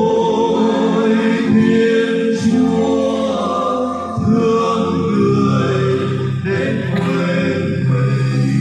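Voices, seemingly a choir, singing a Vietnamese Christmas carol over musical accompaniment, with notes held long.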